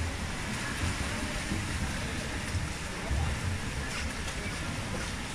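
Indoor swimming pool hall ambience: a steady, even noise of swimmers splashing and the hall, with a low rumble that comes and goes.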